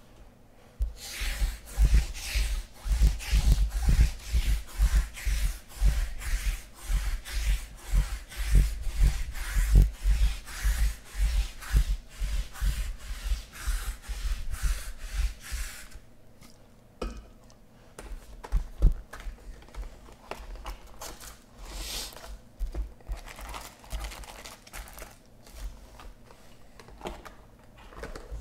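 Hands rubbing and rustling against cardboard hobby boxes and foil card packs. For the first half it is a dense run of strokes, about two to three a second with dull thuds; after that it thins to scattered rustles and taps.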